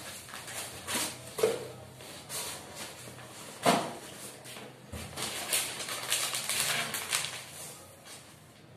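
Cardboard box flaps and plastic packaging being handled: irregular rustling and crinkling with a few soft knocks, busiest in the second half.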